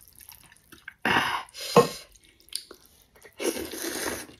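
A person slurping rice noodles of bún bò Huế with broth, in two wet, hissing bursts, about a second in and again near the end.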